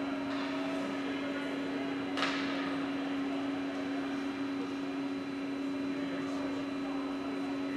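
A steady mechanical hum, with a brief swish about two seconds in.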